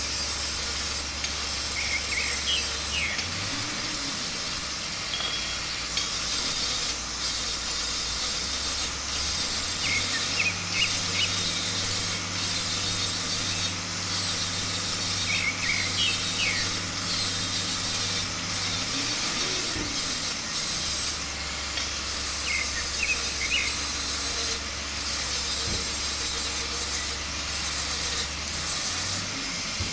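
Electric angle grinder cutting steel pipe: a steady, hissy grinding that dips for a moment again and again as the disc eases off the metal.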